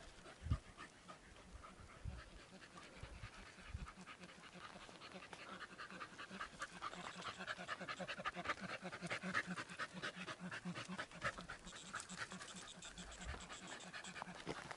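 Brittany hunting dog panting in quick, even breaths, stronger from about six seconds in. A single low thump about half a second in.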